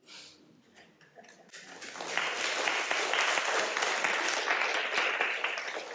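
Audience applauding: faint at first, swelling to full, steady clapping about two seconds in.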